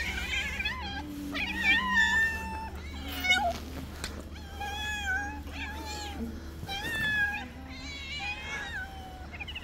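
Several hungry stray cats meowing for food, many long, wavering meows overlapping one another.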